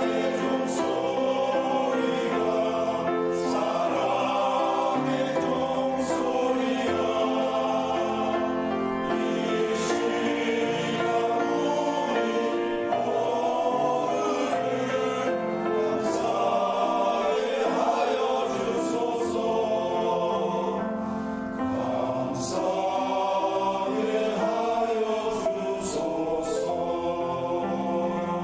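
Church choir singing a hymn in several parts, holding sustained chords.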